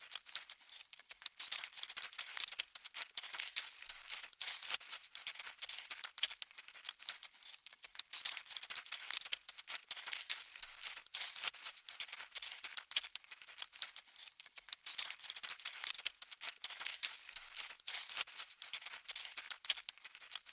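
Bug-walking sound effect: a steady patter of tiny, high-pitched scratchy clicks and rustles, like an insect's many legs skittering over a surface.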